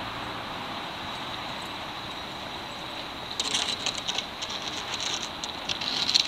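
Steady hum of distant road traffic, with a run of sharp crackling and clicking starting about three seconds in.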